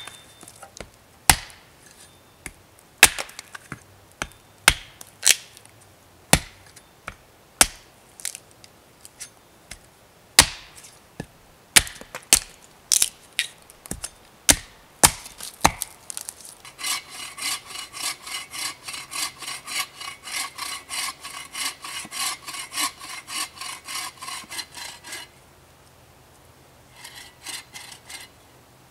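An axe chopping into a wooden post: single sharp strikes at uneven intervals, with wood splitting off. About halfway through, a bow saw cuts through a log in quick, even strokes, about three a second, stopping briefly and starting again near the end.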